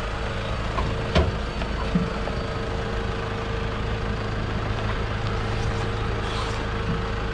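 Toyota Hilux 4WD engine idling with a steady low drone, with a single sharp knock about a second in.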